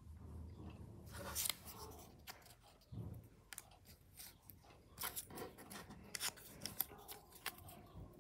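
Paper cutouts being handled and pressed onto a paper drawing on a desk: faint, crisp paper rustles with a run of short clicks and taps, a cluster about a second in and more from about the middle on.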